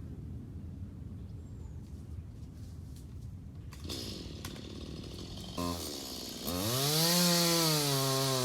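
Chainsaw with a low rumble at first and a short blip of throttle past the middle. About six and a half seconds in it is revved to full throttle, the pitch rising and then settling a little lower and steady.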